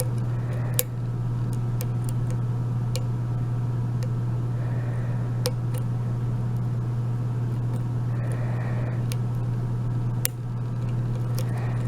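A steady low hum throughout, over which a lock pick and tension wrench working the pins of an Abus 72/40 padlock give scattered sharp small clicks and a few faint scrapes.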